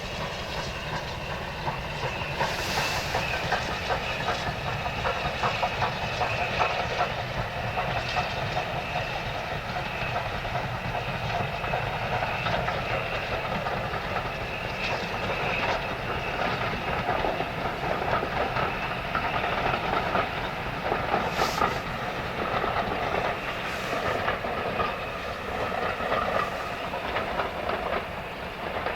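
Steam-hauled train passing, its wheels clattering steadily over the rail joints.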